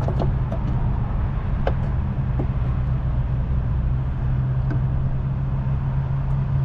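A diesel engine idling steadily with a low, even hum, and a few light clicks from handling a small part.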